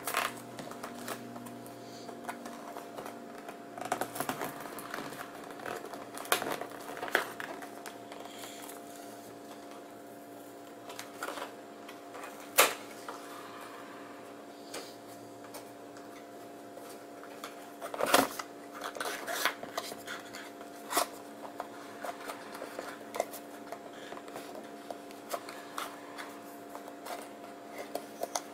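A phone's retail box being worked open by hand: scattered rustles, scrapes and sharp clicks of card and plastic packaging, with one loud snap near the middle and a cluster of clicks about two thirds through, over a steady low hum.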